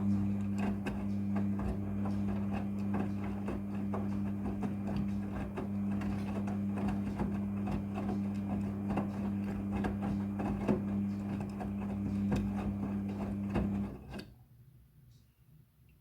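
Midea front-loading washing machine running with a steady mains-pitched electric hum and many small clicks and rattles over it, cutting off abruptly about fourteen seconds in.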